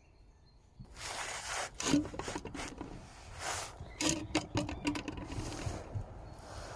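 Rough rubbing and scraping noises with several sharp knocks, starting about a second in.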